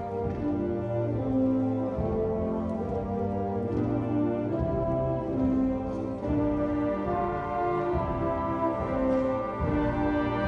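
Middle school symphonic band playing live, with brass carrying a melody of held notes over sustained low notes.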